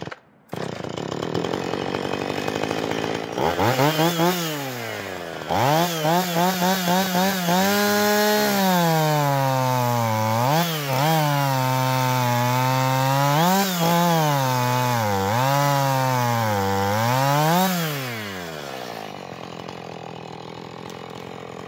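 Husqvarna 445 50cc two-stroke chainsaw revving up and ripping lengthwise through a log. The engine note drops under load and rises again in short surges during the cut. Near the end it falls back to a low idle.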